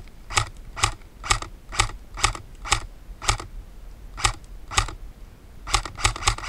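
Airsoft gun firing single shots, each a sharp mechanical click, about two a second. Near the end a quicker string of shots follows, about six a second.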